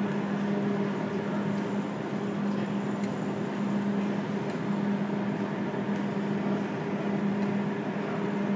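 Steady low hum with a constant background hiss: the room tone of a large indoor exhibition hall, with no engine running.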